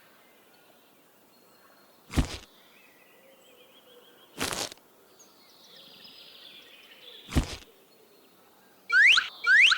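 Three single sharp knocks, a couple of seconds apart, over a quiet background. Near the end comes a quick run of loud rising chirps, about four a second.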